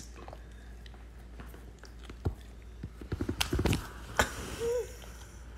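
A Doberman shifting and pawing about on a leather couch at close range: soft rustling and a few light knocks, with a short squeak about four and a half seconds in.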